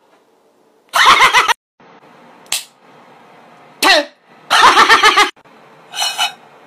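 About five short bursts of wordless, comic vocal noises from a man, one of them a quick falling glide about four seconds in, with a faint steady room hum in the gaps.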